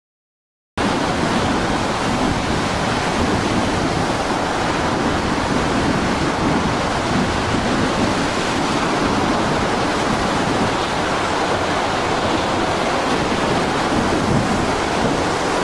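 Silence, then just under a second in, a steady loud rush of storm surf and wind as heavy seas break over a small fishing boat.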